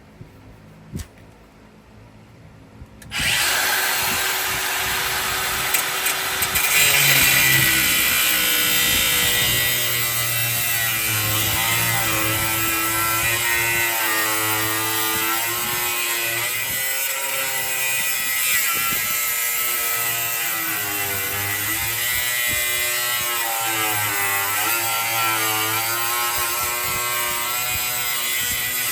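Handheld power tool working steel. It starts about three seconds in and runs steadily, with a high hiss and a whine whose pitch dips and recovers as the tool is loaded.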